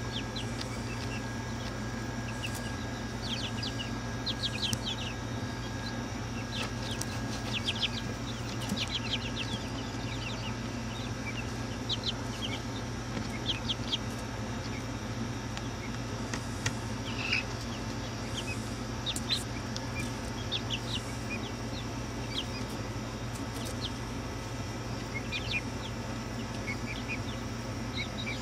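A brood of young chickens peeping in many short, high chirps, in scattered clusters, with a few sharp clicks among them. A steady low hum runs underneath.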